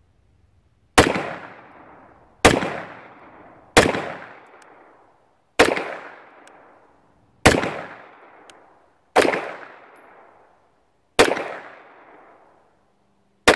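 Eight slow, deliberate 9mm pistol shots from a SIG P320 Legion, one every one and a half to two seconds. Each shot is a sharp crack followed by an echoing tail that dies away.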